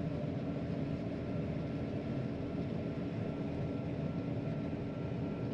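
John Deere 9500 combine running steadily while harvesting corn: a constant low drone.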